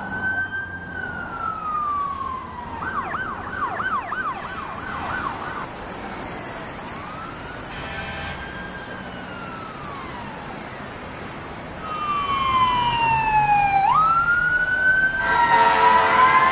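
Emergency vehicle sirens: a slow falling wail, then a rapid yelp of about three cycles a second, then slow rising and falling wails. A long falling sweep snaps back up sharply, and near the end a louder, fuller siren sound with several tones comes in.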